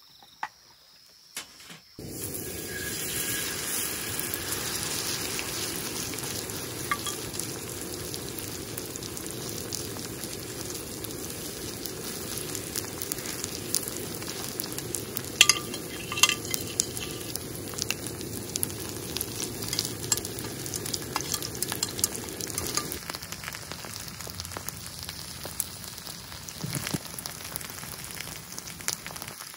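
Food sizzling in hot oil in a frying pan, a steady hiss full of small pops and crackles that starts suddenly about two seconds in.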